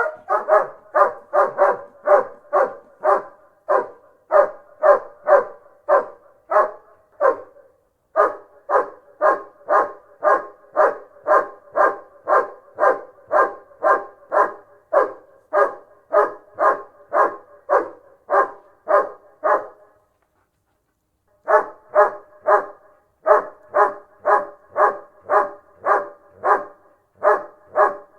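German Shepherd barking over and over, steady and fast at about two barks a second, with a short break about a third of the way in and a pause of about a second and a half past two-thirds through.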